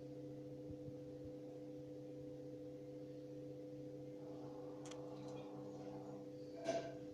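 Pellet stove's fan running with a steady hum during ignition. A few light clicks and a sharper knock come near the end.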